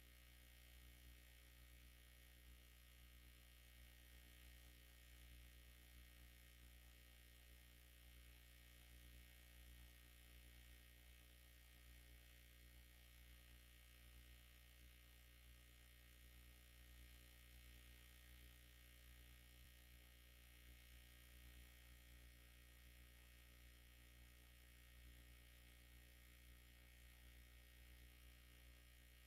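Near silence: a faint steady low hum with light hiss, room tone of the recording.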